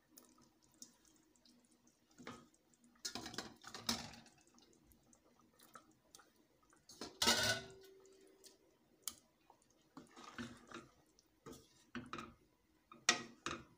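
Pieces of fish dropped one at a time into a pot of simmering curry, giving irregular wet plops and splashes, the loudest a little past the middle. Near the end a wooden spatula stirs the curry, knocking and scraping against the stainless steel pot.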